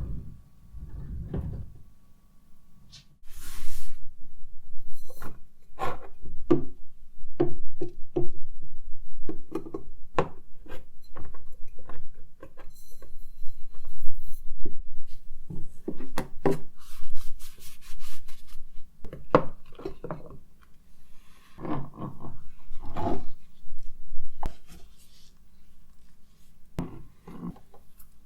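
Close-up handling of objects: irregular taps, knocks and rubbing as things are picked up, tapped and set down.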